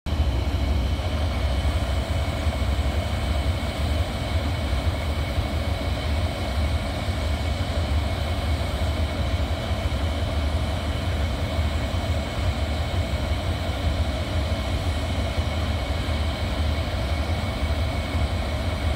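SRT Hitachi diesel-electric locomotive 4522 running with a steady low engine rumble as it pulls an express train slowly away from the station.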